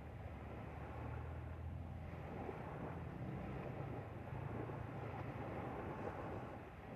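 Motorboat engine running steadily as a low hum, with water rushing past the hull.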